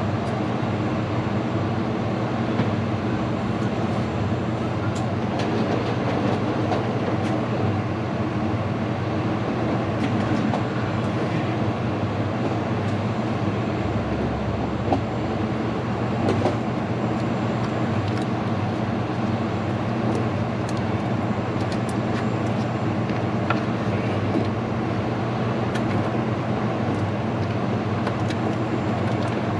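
Steady low mechanical hum, with a few faint clicks and taps.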